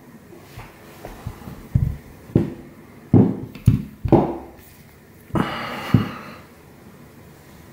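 Handling noise from an old revolver on a cloth-covered table: a run of knocks and thumps as it is moved and set down, then a short rustle and one more thump as a hand takes hold of it again.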